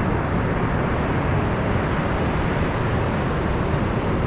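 Steady roar of surf breaking, with a low rumble.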